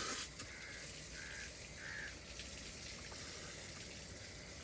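Steady, faint rush of flowing river water, with a bird giving three short calls in the first two seconds.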